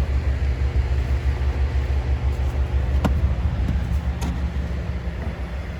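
Mack plow truck's diesel engine running with a steady, pulsing low rumble, with two light clicks about three and four seconds in.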